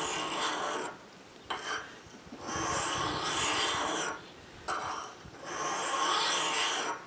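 Steel ice auger blade drawn along a fine sharpening stone in long, even strokes, a gritty scraping that comes three times with short scrapes between. The blade is being honed to work off the remaining burr along its edge.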